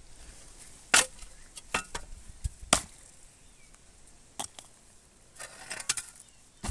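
Several sharp, irregular knocks, the two loudest about one second and nearly three seconds in, with lighter ones between and a small cluster near the end.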